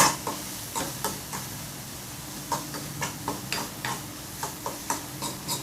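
Chopped onion, green chilli and spice powders being stirred as they fry in a little oil in a pan. Irregular clicks and scrapes of the utensil against the pan sound over a light sizzle.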